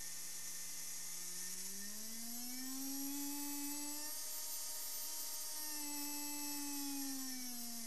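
Small brushed DC hobby motor, driven from an Arduino through a transistor motor shield, whining as its speed is ramped up over the first few seconds, running steadily, then slowing down again near the end, over a steady hiss.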